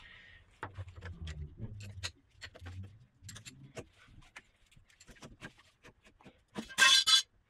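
Metal parts of a Boxford milling machine's table and saddle handled and shifted by hand: a run of light clicks and knocks with a low rumble in the first couple of seconds, and a short, louder scrape near the end.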